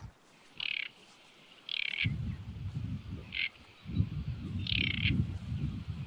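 Great reed warbler singing: four short notes spaced about a second apart, over a low rumble of strong wind buffeting the microphone from about two seconds in.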